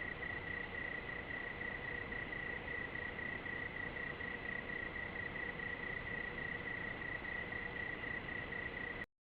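A cricket trilling steadily at one high pitch over a background hiss; the recording cuts off suddenly near the end.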